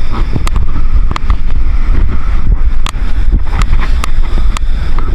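Heavy wind buffeting the microphone as a loud, steady low rumble, with sharp clicks at irregular intervals, about nine in all.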